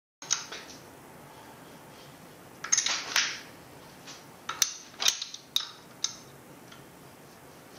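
Small metal engine parts clinking and clicking as they are handled, in a series of sharp clinks: one near the start, a cluster about three seconds in, and several more between four and a half and six seconds.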